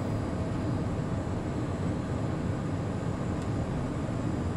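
Steady cockpit noise of a Cessna Citation Mustang business jet in flight: a low, even rush of airflow and its two Pratt & Whitney Canada PW615F turbofans.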